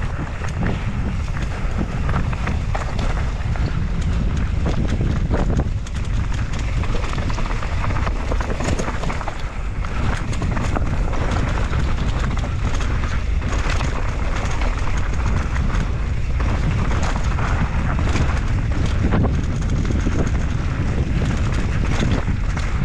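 Mountain bike descending a downhill trail at speed: heavy wind rush on the microphone over tyres rolling on dirt and rock, with frequent short rattles and knocks from the bike.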